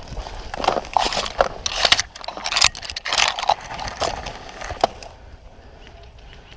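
Crackling, rustling bursts of a person moving through brush and dry leaves, irregular for about five seconds, then dying down to a quieter background.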